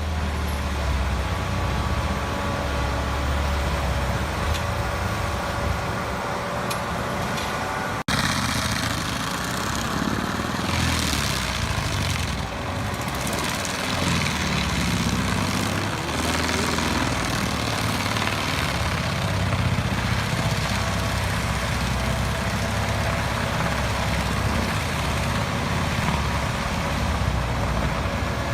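Engine of a tracked forestry mulcher running steadily under load, with a sudden break and change in the sound about eight seconds in.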